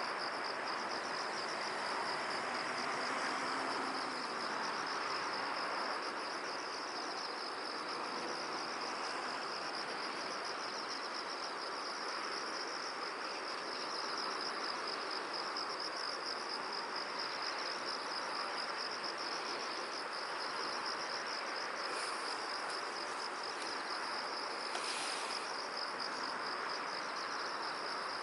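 Steady, fast-pulsing high insect trill that carries on without a break, over a soft, even rush of wind in a field.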